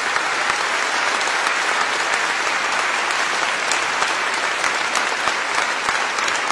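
Large audience applauding steadily, a dense, even clapping that does not fade.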